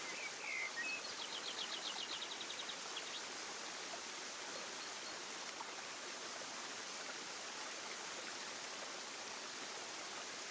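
Steady rushing of flowing water, like a stream, with a couple of bird chirps at the start and then a quick high bird trill about a second in, lasting about a second and a half.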